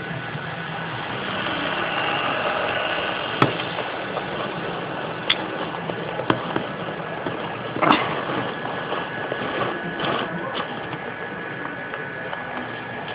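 PIKO model electric train running along its track, a steady motor whine and wheel rumble that swells about two seconds in as it passes close. A few sharp clicks come through it.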